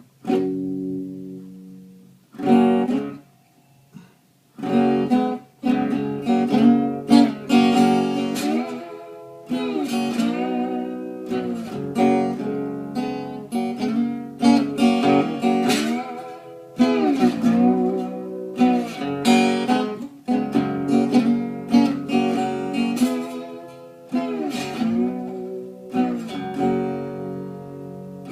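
Acoustic guitar playing a slow song introduction of strummed and picked chords: two opening chords, a short pause, then steady playing.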